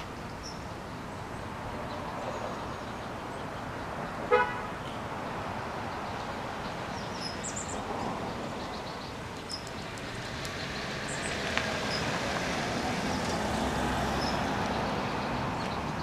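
Steady hum of road traffic that swells near the end as a vehicle passes, with one short pitched toot about four seconds in and a few faint, high bird chirps.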